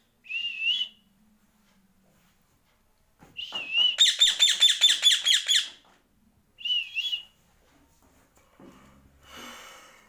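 Indian ringneck parrot whistling: a short wavering whistle at the start, then another that runs into a fast string of about eight repeated whistled notes, and one more wavering whistle about seven seconds in.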